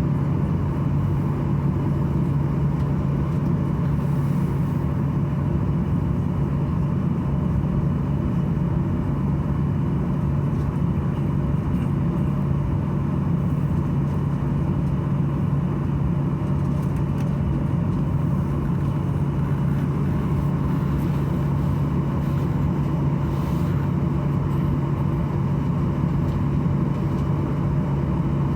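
Steady droning hum inside the cabin of a Boeing 737-800 waiting before departure, with a strong low tone that holds without change.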